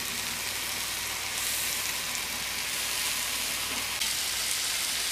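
Marinated mutton leg frying in oil on a flat iron dosa griddle, a steady sizzling hiss.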